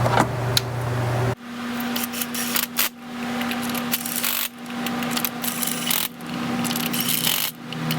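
Hand tools and small metal parts being handled: scattered clicks, taps and scrapes over a steady shop hum.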